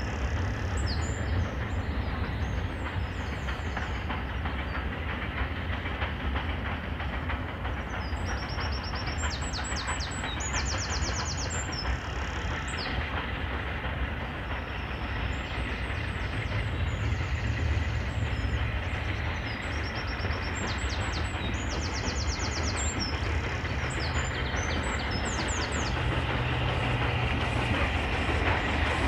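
Southern Railway Q class 0-6-0 steam locomotive drifting in slowly on the line, a steady low rumble that grows a little louder near the end as it nears, with high chirps over it.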